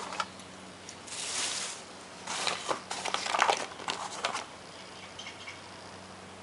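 Hands working on a string trimmer's small parts: a short brushing rustle, then a quick run of clicks and rattles of plastic and metal pieces being handled.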